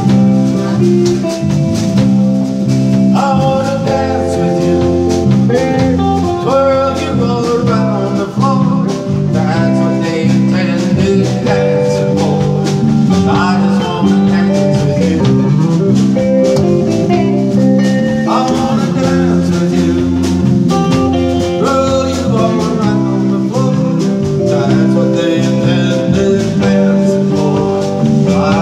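Live country band playing: a male singer with acoustic guitar, backed by electric bass and drums.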